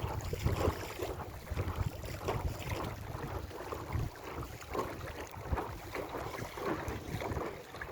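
Water splashing and slapping irregularly against a small inflatable sailing dinghy's hull as it moves, with wind rumbling on the microphone.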